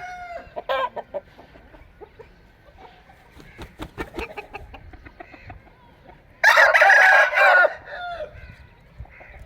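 Aseel rooster crowing once, a loud crow of just over a second about two-thirds of the way in, with short clucking calls near the start.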